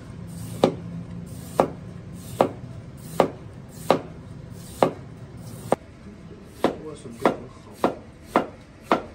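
Cleaver slicing a pale green vegetable on a wooden cutting board: about a dozen single knocks of the blade on the board at an even pace, a little under a second apart.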